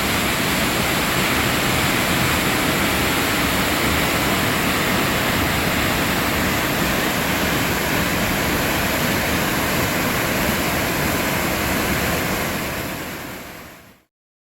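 Steady rushing of a waterfall, fading out over the last two seconds or so.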